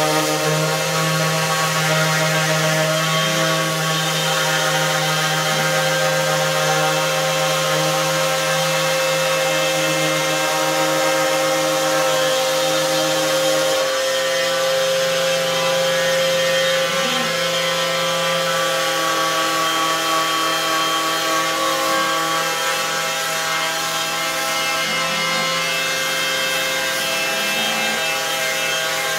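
DeWalt cordless random orbital sander running steadily against wood, a continuous motor whine as it sands the stain off the raised letters of a sign down to bare wood. Its pitch shifts slightly about halfway through.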